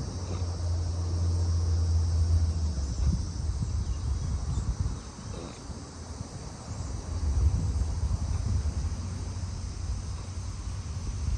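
A horse lying in deep sleep and snoring: two long, low snores, the first in the opening three seconds and the second about seven seconds in. Crickets chirp steadily behind.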